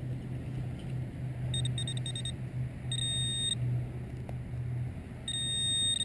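Metal detector beeping on a buried coin target in a dig: high-pitched electronic tones, first four quick beeps, then one longer beep, then fast repeated beeping near the end, over a low steady hum.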